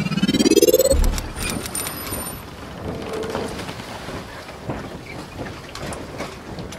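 Logo-intro sound effects: a rising tone that swells over the first second and ends in a low thump, followed by a steady crackling noise like rain, with scattered clicks and a brief high ringing tone.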